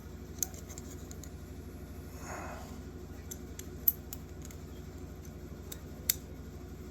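Light metallic clicks and taps from folding-knife parts being fitted together by hand, with a sharp click a little under four seconds in and another about six seconds in, over a steady low hum.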